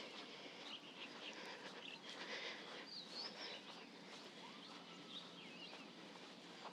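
Faint birds chirping and whistling in short, quickly gliding calls over a steady outdoor background hiss.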